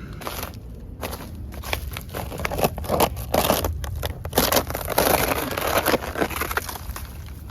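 Crinkling, crackling rustle with scrapes as garden material is handled, busiest and loudest from about three to six seconds in.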